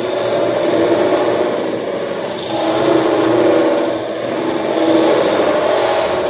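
Dense, buzzing electronic synthesizer drone with steady held tones, swelling louder and softer about every two seconds.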